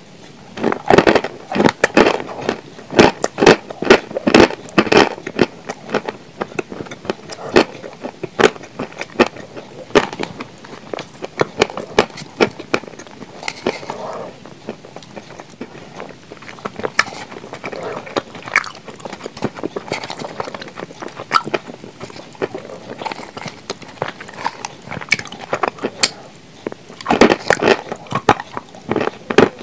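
Close-miked eating sounds of a spoonful of cream mixed with blue Uzbek clay being eaten: wet chewing and mouth smacks with many sharp, irregular crackles. The crackles are thickest in the first few seconds and again near the end.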